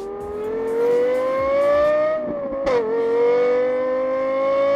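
Car engine accelerating hard. Its pitch climbs steadily, drops sharply at a gear change a little over halfway through, then climbs again.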